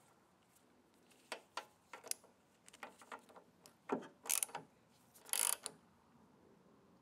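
Metal tool clicks as a spark plug socket goes onto a freshly threaded spark plug in a lawn mower engine, then a socket wrench's ratchet clicking in two short runs, about four and five and a half seconds in, as the plug is snugged down.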